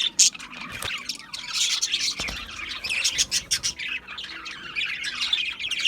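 A flock of budgerigars chattering: dense, rapid chirps and short squawks overlapping.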